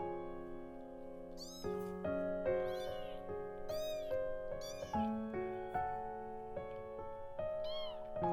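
Kitten mewing several times, short high-pitched mews, over soft piano background music.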